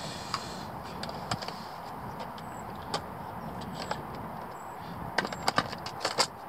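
Small sharp clicks and rattles of a hand picking through the compartments of a plastic tackle box for small terminal-tackle parts, scattered at first and coming thick and fast for the last second and a half, over a steady background hiss.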